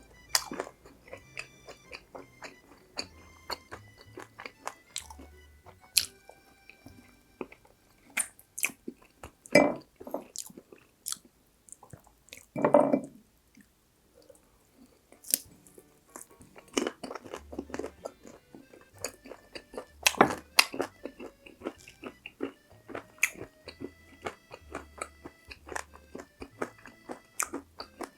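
Crunchy biting and chewing of fried food, many sharp crunches one after another, with a few louder bites along the way.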